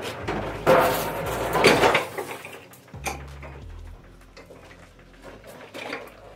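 Metal clattering and clanking, loudest in the first two seconds, then a few lighter clicks that die away.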